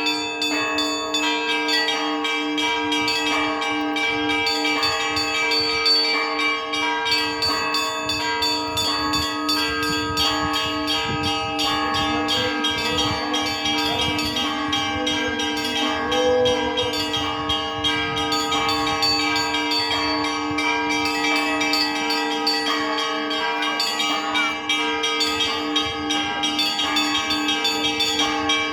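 Church bells ringing a peal: fast, dense strokes of small bells over the steady ringing of larger bells.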